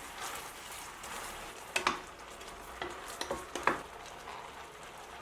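Kumquats simmering in rock-sugar syrup on low heat, a steady bubbling hiss, with a utensil stirring and scraping the pot several times, the sharpest strokes about two seconds and three and a half seconds in.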